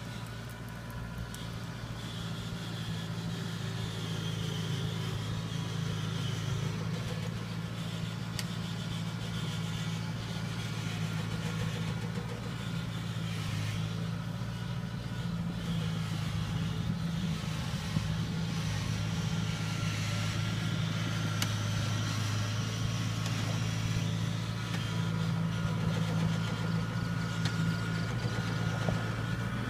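Engine of a Kubota rice combine harvester running steadily as the machine drives on its crawler tracks, a constant low hum that grows slightly louder.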